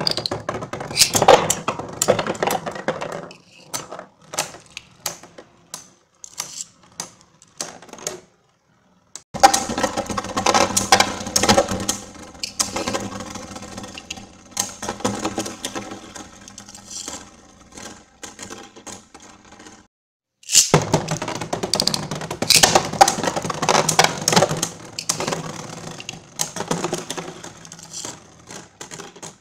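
Beyblade Burst spinning tops (Xcalius X3 and Dread Phoenix P4) clashing and skittering in a plastic stadium: rapid clattering clicks as they hit each other and the walls, thinning to lighter ticking as they slow. The sound stops abruptly twice, about 8 and 20 seconds in, and each time starts again loud.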